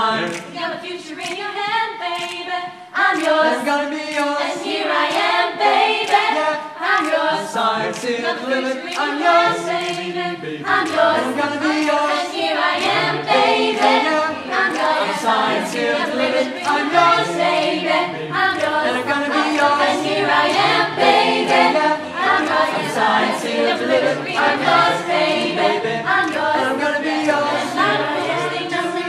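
Mixed male and female a cappella ensemble singing in close harmony without instruments, with sharp percussive clicks running under the voices.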